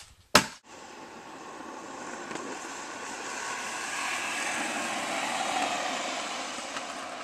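A sharp knock near the start, then stunt scooter wheels rolling on asphalt: a steady rolling rumble that grows louder toward the middle and eases off near the end.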